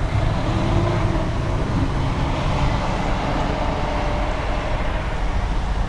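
Honeybees buzzing around an open hive: faint pitched hums drifting over a steady low rumble.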